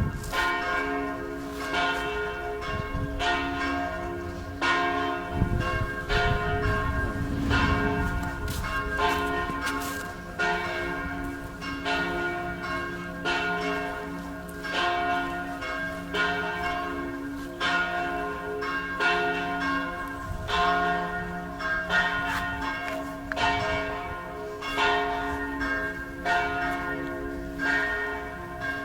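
Church bells ringing: a steady run of strokes, roughly one or two a second, each tone ringing on and overlapping the next.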